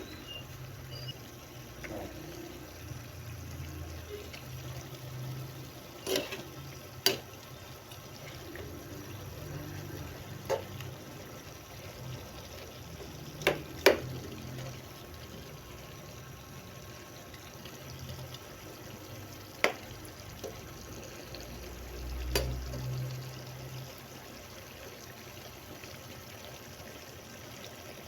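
Steady liquid noise, with about seven short sharp clicks or knocks spread through it, two close together about halfway through.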